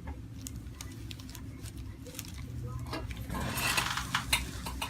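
A few light, scattered clicks, with a short rustling about three seconds in: a patient being handled and shifting on a chiropractic treatment table.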